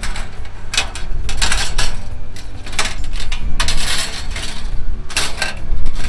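Wire grill grate clattering and clinking against the metal body of a folding fire pit as it is packed inside: a series of irregular sharp metallic rattles and knocks.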